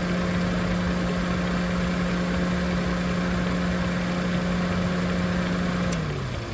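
Daihatsu Hijet kei truck running, with a steady loud hum over the engine noise. About six seconds in there is a sharp click, and the hum slides down in pitch and dies away while the engine keeps running.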